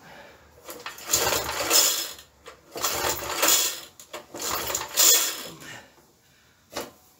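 Recoil starter of a 3.5 hp Briggs & Stratton lawnmower engine pulled three times, the rope rattling out as the engine spins over freely with its spark plug out of the cylinder for a spark test.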